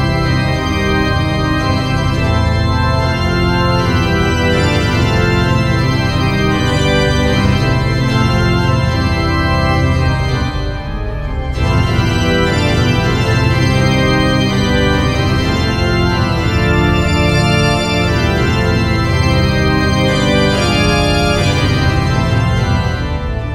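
Instrumental background music of held, organ-like keyboard chords at a steady loud level, easing briefly about eleven seconds in and again just before the end.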